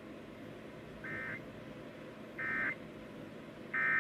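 Emergency Alert System end-of-message data bursts over a radio broadcast: three short electronic bursts about 1.3 seconds apart, signalling the end of the severe thunderstorm warning.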